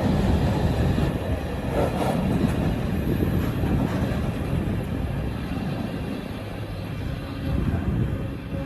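Class 68 diesel-electric locomotive's Caterpillar V16 engine running, a heavy steady low rumble, with a few short knocks about two seconds in.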